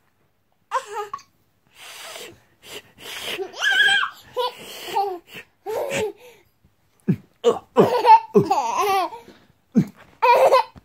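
A toddler girl laughing in repeated bursts of giggles and belly laughs.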